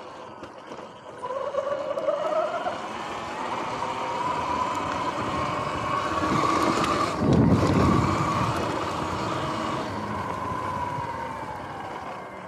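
Electric dirt bike's motor whining while riding over grass, the whine rising in pitch as it speeds up about a second in, holding, then falling near the end, over wind and tyre noise. A loud low rumble about seven to eight seconds in.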